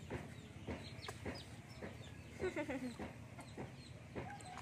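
Chickens clucking, with light splashing of water as a baby monkey paddles in a plastic basin. A short call falling in pitch comes about halfway through.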